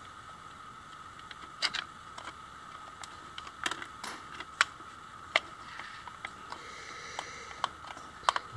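Scattered light clicks and taps of hands handling 3D-printed plastic parts and a twisted wire, at irregular moments, over a steady faint high hum.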